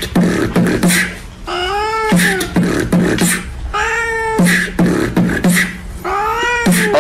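Beatboxing: a steady beat of mouth clicks over a low hum, with a cat meowing along three times, each meow drawn out and rising then falling in pitch.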